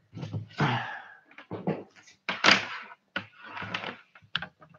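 Irregular clicks, knocks and rustling of a device and cable being handled close to the microphone, with a few sharp clicks near the end.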